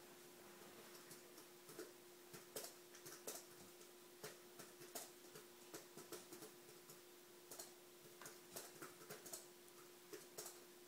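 Near silence: room tone with a faint steady hum and scattered faint clicks at an irregular pace.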